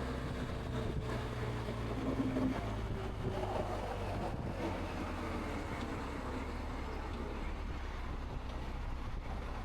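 Steady wind noise inside a Sedici Sistema II modular helmet at about 65 mph, picked up by a microphone at the rider's ear. Underneath it runs the constant drone of the BMW R 1250 GS's boxer-twin engine at cruising speed.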